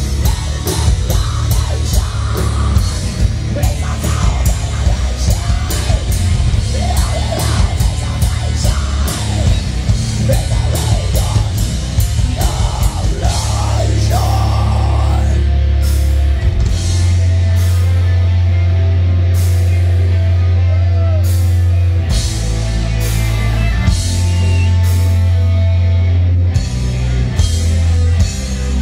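A heavy metal band playing live: distorted electric guitars, bass guitar and a drum kit, with a voice singing over the first half. In the second half the playing opens out into a heavy held low note with spaced drum hits.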